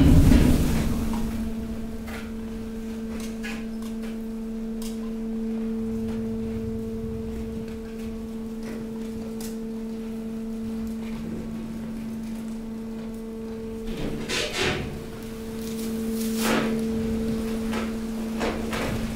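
Hydraulic waste compactor at work: its power unit hums steadily while mixed rubbish is pushed across the steel chamber floor. A heavy thud comes right at the start, and scattered knocks and scrapes of debris follow, with a louder cluster about two thirds of the way in.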